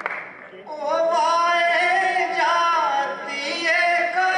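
A solo voice singing a Gojri ghazal in long held notes that bend and waver in pitch, coming in about a second in after a brief lull.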